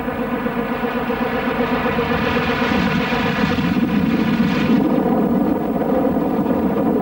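Engine and propeller of a Grumman Ag-Cat floatplane running steadily with a droning note. A rushing noise swells and fades a couple of times over it.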